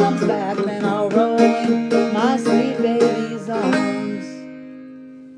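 Two clawhammer banjos, a fretless handmade mountain banjo and a Goldtone banjo, play the closing bars. The picking stops about three and a half seconds in, and the final chord rings on and slowly fades out.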